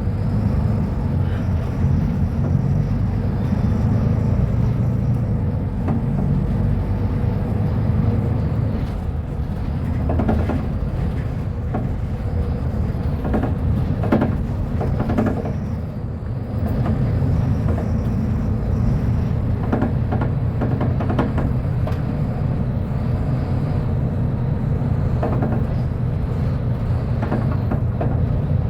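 Mercedes-Benz O500U city bus engine running under way, a steady low rumble with scattered short rattles and knocks. The level dips briefly about halfway through, then picks up again.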